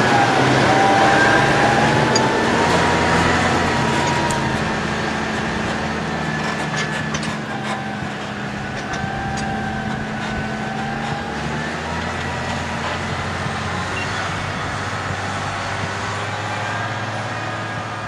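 Massey Ferguson 6480 tractor pulling a loaded two-axle potato trailer past: the diesel engine runs steadily with a wavering whine over it and light clicks and rattles a few seconds in. It grows quieter as it draws away over the first half, then holds steady.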